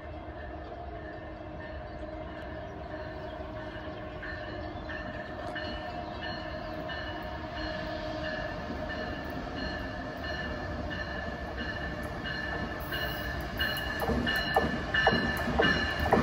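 Amtrak train hauled by an ACS-64 electric locomotive approaching at speed. A steady high whine grows gradually louder, and wheel-on-rail clatter builds in the last few seconds as the train nears.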